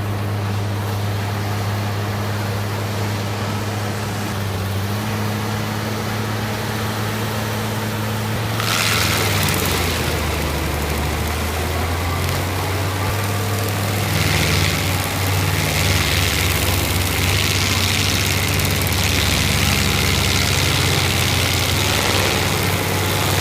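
A Case 7250 tractor's engine running steadily, driving an FAE forestry mulcher. About nine seconds in, a loud harsh grinding joins as the mulcher's rotor teeth chew into wood, and it swells and eases a few times.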